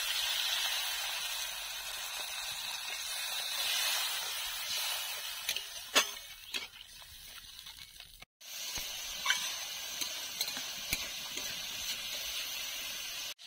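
Water poured into a hot wok of fried masala and crab, hissing and sizzling loudly at first. Then a metal spatula stirs and knocks against the wok with a few sharp clicks, while the thinned curry keeps sizzling and bubbling more quietly.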